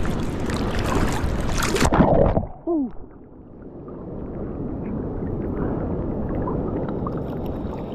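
Loud rush of wind and moving water on the microphone that turns abruptly muffled about two seconds in, with a brief grunt-like vocal sound just after, then duller water noise.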